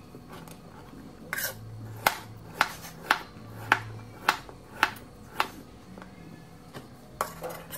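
Chef's knife slicing through a carrot and striking a plastic cutting board: a run of about eight sharp chops, roughly two a second, and one more near the end.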